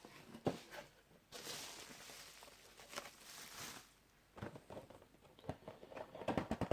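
Faint handling of a toy's cardboard box and plastic packaging insert: soft rustling and scraping, then a run of small clicks and taps in the second half.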